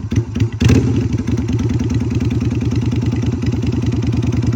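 Motorcycle engine running just after starting: a short rev about half a second in, then a steady, even idle.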